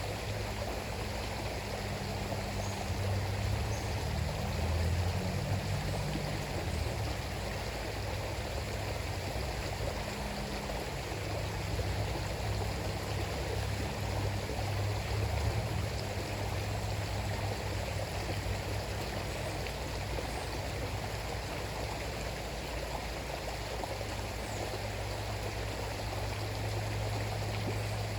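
River flowing: a steady rush of running water, with a low rumble underneath that swells and fades.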